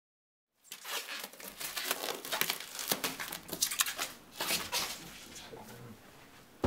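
Plastic stretch wrap being pulled off a hand roll and wound around a blanket-covered mirror, crackling and crinkling in quick, irregular bursts that ease off near the end.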